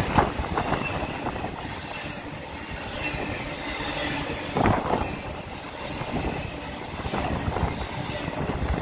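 Intermodal freight train's container and trailer cars rolling past close by: a steady rumble of steel wheels on rail with occasional clanks, the loudest just after the start and a little before five seconds in.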